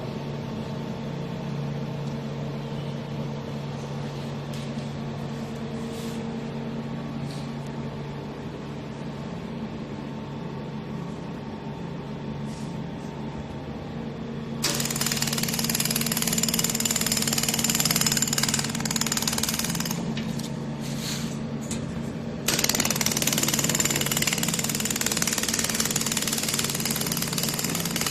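Handheld fiber laser welding machine: a steady machine hum, then about halfway a loud, rapid buzzing hiss of the laser welding starts. It breaks off briefly and picks up again near the end.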